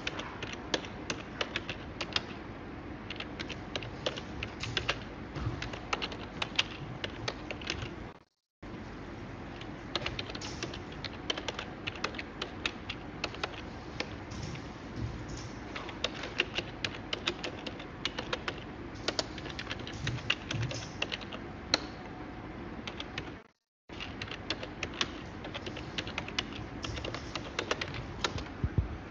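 Typing on a computer keyboard: rapid, irregular keystrokes that go on throughout, with the audio cutting out completely for an instant about 8 seconds in and again about 23 seconds in.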